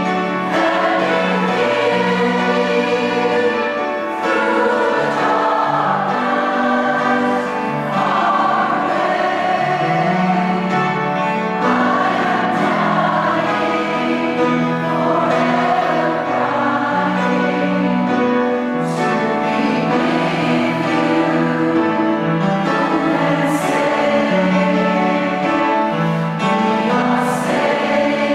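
Large amateur choir of mixed men's and women's voices singing together, a slow song with long held notes.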